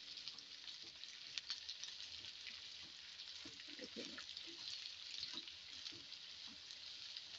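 Sliced onions sizzling faintly in hot mustard oil in a kadhai, with fine crackles, as they are stirred with a wooden spatula.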